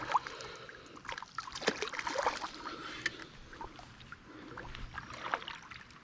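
Light splashing and trickling water, broken by scattered small clicks and knocks.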